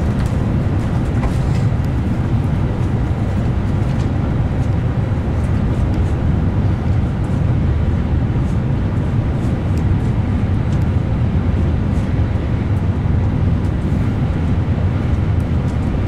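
Tokaido Shinkansen bullet train running at speed, heard from inside the passenger car: a steady low rumble and rush of running noise, with a few faint clicks.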